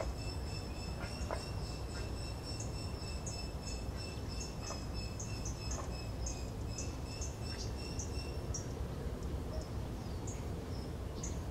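Outdoor ambience: a steady high-pitched tone runs until about eight and a half seconds in, while many short, high bird-like chirps come in quick succession over a low steady rumble.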